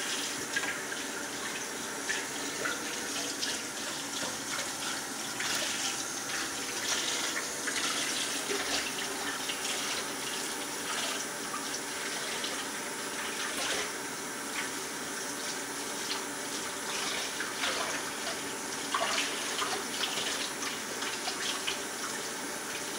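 Kitchen faucet running steadily into the sink while soapy hands are scrubbed and rinsed under the stream, the splashing changing unevenly as the hands move.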